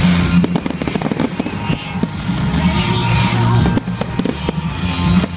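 Fireworks display: aerial shells bursting overhead in many quick bangs and crackles, one on top of another.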